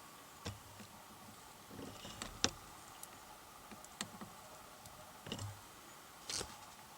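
A scattering of short, sharp clicks and light knocks at uneven intervals, the loudest about two and a half seconds in.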